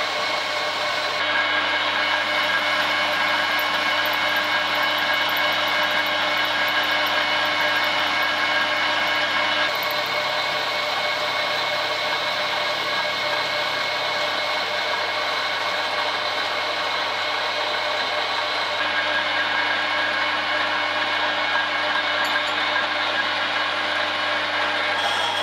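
Harrison 140 metal lathe running steadily while a small pipe fitting is taper-turned, its geared headstock giving a whine of several steady tones over a mechanical hiss. The tone shifts slightly a few times.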